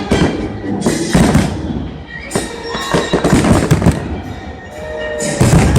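Aerial fireworks bursting in rapid succession, many booms and sharp cracks overlapping, over music playing through a stadium sound system.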